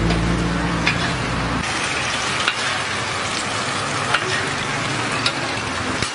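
Beaten egg mixture sizzling on a hot flat-top griddle, a steady frying hiss with a few light clicks scattered through it. A low steady hum underneath cuts off about a second and a half in.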